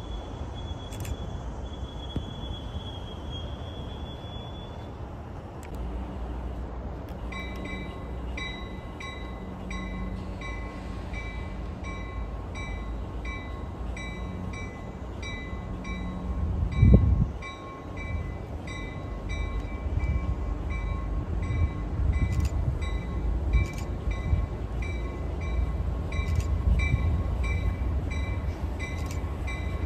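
Commuter train approaching with its cab car leading: its bell rings in a steady repeating pattern from about seven seconds in, over a low rumble that grows louder as the train comes closer. A single brief low thump about halfway through is the loudest moment.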